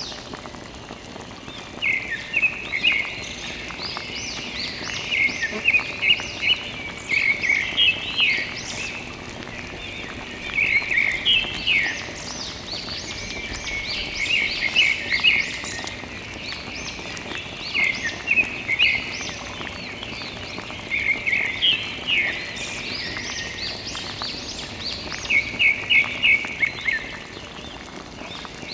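Thin stream of water from a small plastic tube splashing and trickling into a shallow puddle, with clusters of quick, high bubbly blips that come and go every second or two over a steady hiss.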